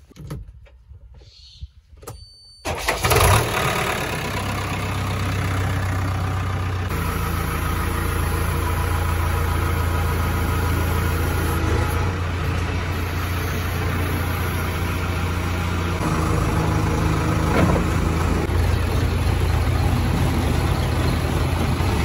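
JCB 3DX backhoe loader's diesel engine starting with a sudden burst about three seconds in, then running steadily with a low hum.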